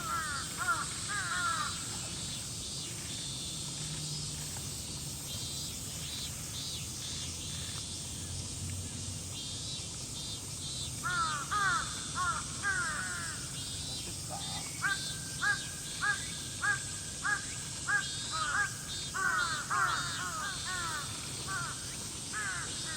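Crows cawing in bursts, including a run of about seven evenly spaced caws in the middle, over a steady high hiss and faint high chirping.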